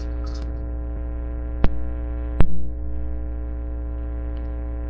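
Steady electrical mains hum with a ladder of overtones, broken by two sharp clicks about one and a half and two and a half seconds in.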